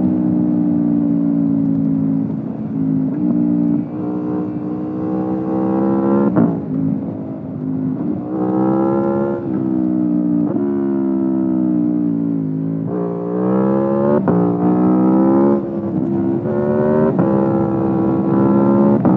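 Aprilia Tuono V4 Factory's V4 engine through an Akrapovic exhaust, heard onboard while riding: the revs climb and fall repeatedly, dropping sharply a few times as it shifts gear, then pulling up again.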